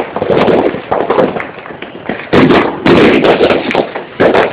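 Fireworks going off in quick succession: a dense run of bangs and crackles, loudest at the start, around two and a half seconds in, and again near the end.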